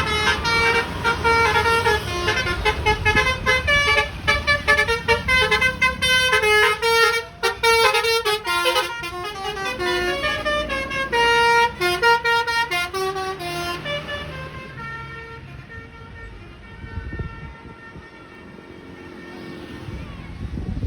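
Telolet horn on a tour bus playing a quick run of stepped musical notes for about fourteen seconds, then it stops and only quieter road-vehicle noise remains.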